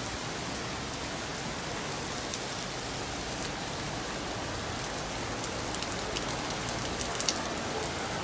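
Heavy rain falling steadily onto a flooded street and wet paving, with scattered sharp ticks of close drops in the second half.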